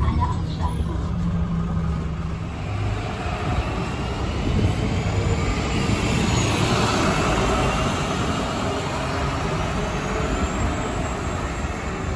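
City bus engines running: for the first couple of seconds a steady low hum inside the bus, then diesel buses idling and pulling through a bus station, with faint high whines that rise and fall.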